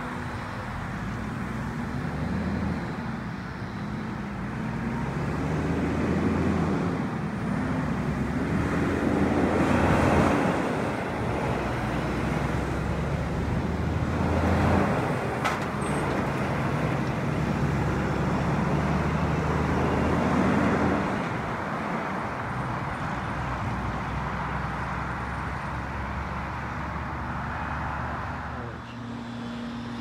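Road traffic led by a diesel semi-truck's engine pulling through the intersection, its low engine note rising and falling several times as it gathers speed. It is loudest about ten and fifteen seconds in.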